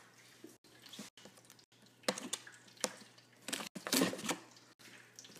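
Faint, intermittent rustling of a taped cardboard box being handled, in a few short spells about two, three and four seconds in.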